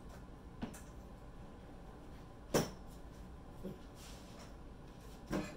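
A few short knocks and clatters of kitchenware being handled, the loudest a sharp knock about two and a half seconds in and another near the end, over quiet kitchen room tone.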